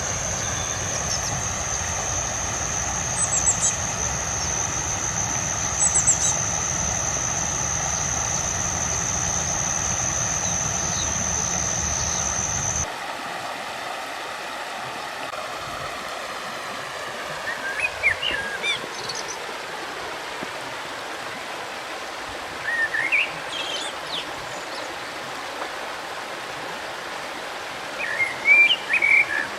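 A stream flowing steadily, with small birds giving short chirps a few times in the second half, loudest near the end. For about the first thirteen seconds a steady high whine and a low rumble run under the water, then stop suddenly.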